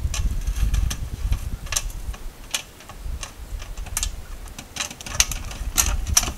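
Grizzly bear's footsteps in dry, frosty grass: irregular crisp crackles and clicks, about a dozen over several seconds, over a low uneven rumble.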